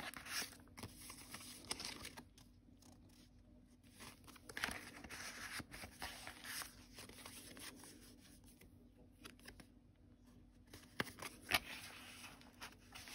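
Paper rustling and crinkling as the cards and flaps of a handmade paper journal are handled, coming in irregular bursts, with a few sharp ticks about eleven seconds in.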